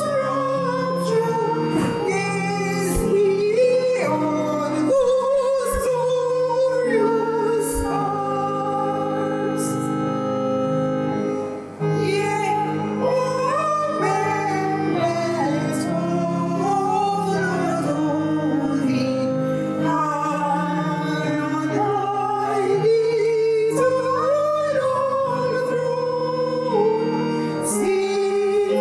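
A woman singing a slow song with instrumental accompaniment, in a large reverberant room.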